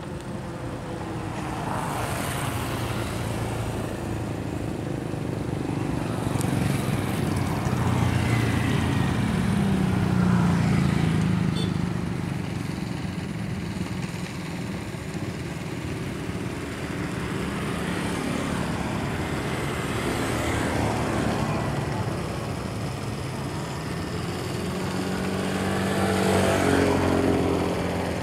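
Honda GX160 163cc single-cylinder four-stroke engine running steadily as a long-tail outboard, driving a bamboo raft. Its sound swells louder about a third of the way in and again near the end.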